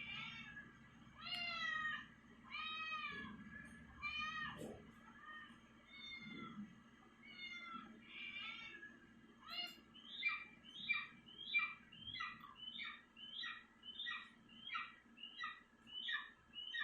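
Cat meowing over and over in drawn-out, arching meows about a second apart. From about ten seconds in these give way to shorter, quicker mews at about two a second.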